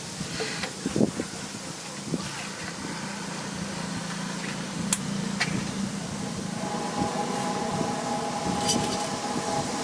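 Busy street ambience with traffic noise and a steady hum, broken by a few sharp clicks. About two-thirds of the way through, a steady droning tone comes in and holds.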